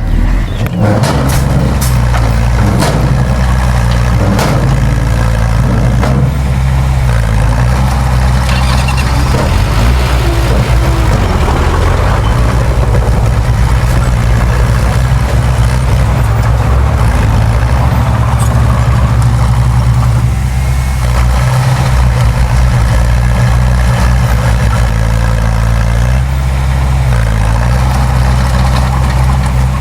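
Heavy diesel engine of earthmoving machinery running steadily under load, its pitch dipping and recovering several times as the load changes. A few sharp knocks come in the first several seconds.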